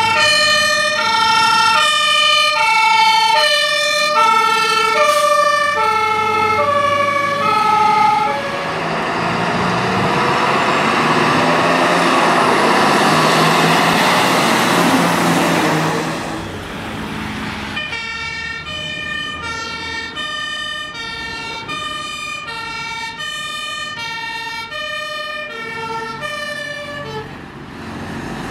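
German fire trucks' two-tone sirens (Martinshorn), switching between a high and a low note about every half second. About eight seconds in, the siren gives way to loud engine and road noise from a passing vehicle. From about eighteen seconds a second, quieter two-tone siren at a different pitch sounds.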